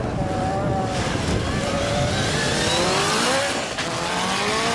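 Ford RS200 Pikes Peak rallycross car's turbocharged four-cylinder engine accelerating hard. The revs climb, drop sharply at a gear change a little past halfway, then climb again.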